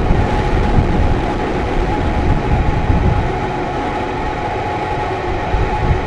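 Rocket engine firing: the steady, crackling rumble of the Starhopper test vehicle's single Raptor methane engine during a hop.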